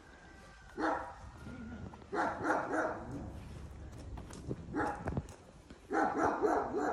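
A dog barking in several short bouts with pauses between them.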